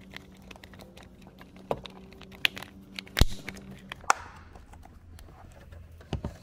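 Hard plastic clicks and knocks as a car's fuse box and its cover are handled and snapped together, with one loudest sharp snap about three seconds in, over a low steady hum.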